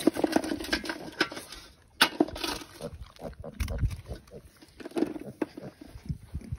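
Sow and piglets grunting in short, irregular bursts as they nose at whole eggs tossed on the grass, with a sharp click about two seconds in.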